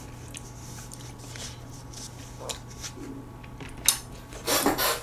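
Metal chopsticks lightly clicking against dishes, with a sharp tap about four seconds in and a short louder rustle just after as food is picked from a plate.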